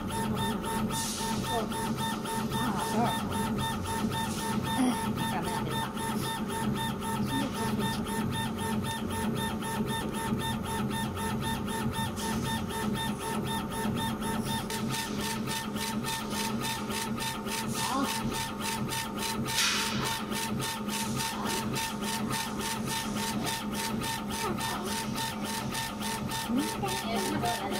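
80W CO2 laser engraver raster-engraving marble: the laser head shuttles rapidly back and forth on its gantry, making a steady machine whir with a quick, even pulsing and several constant tones. A brief hiss comes about 20 seconds in.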